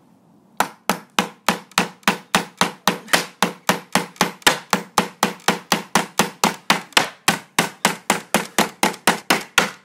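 Hammer driving a reused nail into a wooden floorboard slat: rapid, steady blows, about three or four a second, starting about half a second in.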